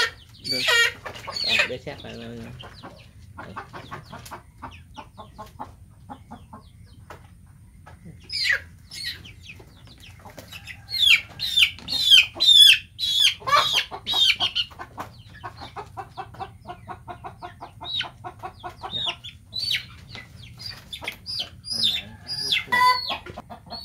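Chickens squawking and clucking while being caught and handled for a vaccine injection: sharp falling squawks, with a loud run of them about halfway through, then quicker, softer clucking.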